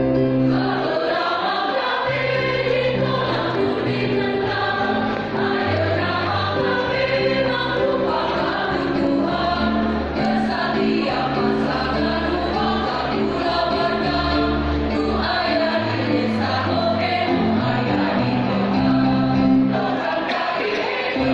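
A choir singing a slow song in several parts, holding long notes.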